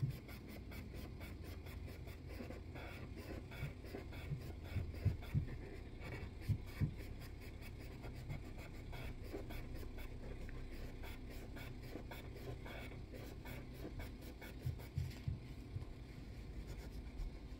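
Hand polishing of a straight razor's steel tang with Mother's metal polish: quick, even back-and-forth rubbing strokes, with a few soft low knocks against the table.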